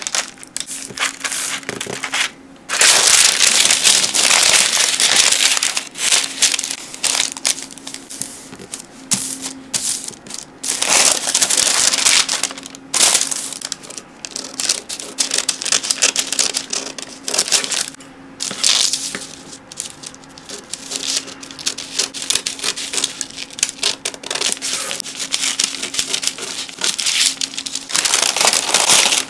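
Parchment baking paper being folded, creased and handled, crinkling in loud irregular bursts, with scissors snipping along the creases partway through.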